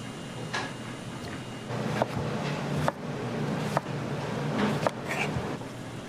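Chef's knife slicing a lemon on a cutting board, the blade tapping the board four times about a second apart.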